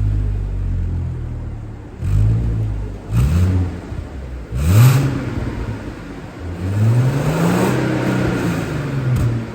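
Audi A7 3.0 TFSI V6 revving through an aftermarket valved exhaust tuned for a downpipe-like tone. It gives three quick throttle blips, then a longer rev that climbs and falls back near the end.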